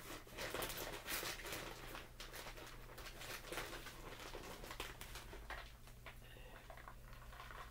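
Plastic bag of shredded cheese crinkling as it is handled and a hand digs into it for cheese: a dense, irregular run of crackles that eases off near the end.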